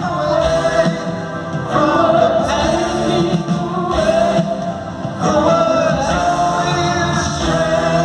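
Live rock concert music: voices singing long held notes over a full band, heard from the stands of an arena.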